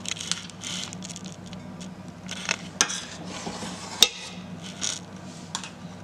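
Spoon scraping the last muffin batter out of a pot and clinking against it, with irregular scrapes and a couple of sharp clinks around the middle.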